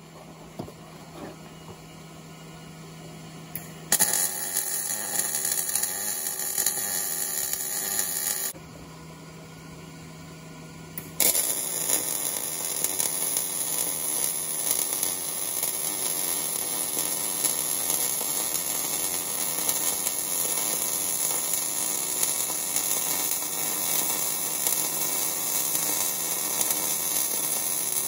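MIG welder running weld beads on steel: a steady loud crackle in two runs, a short one starting about four seconds in and stopping after about four seconds, then after a short pause a long one that runs until just before the end.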